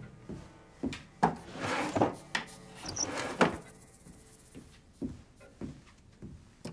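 Wooden drawers of a chest knocking and sliding as they are handled, followed by soft footsteps, over quiet background music.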